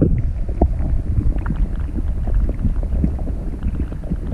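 Water heard through a microphone held under the surface: a muffled low rumble with many small clicks and knocks, the higher sounds cut away.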